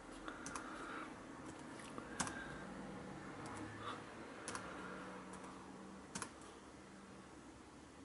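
Faint, separate key presses on a Lenovo ThinkPad laptop keyboard: about seven single clicks spaced a second or more apart, the sharpest around two seconds and six seconds in.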